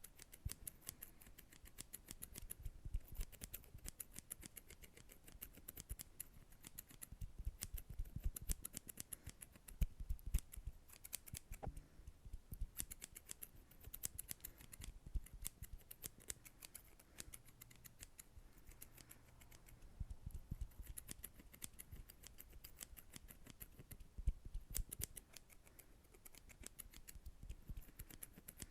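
ASMR hand sounds close to the microphone: rapid crisp clicks and crackles in uneven clusters, with soft low thumps among them.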